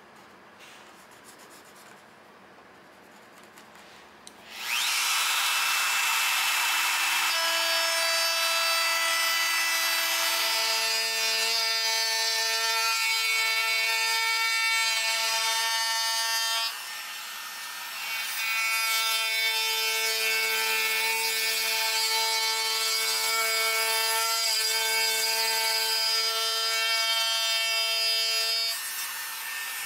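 Compact trim router cutting a shallow hinge mortise into plywood: a few seconds in the motor comes up to speed, a steady whine mixed with the grating of the bit chewing wood. The cutting drops away briefly a little past halfway, resumes, and the motor winds down near the end.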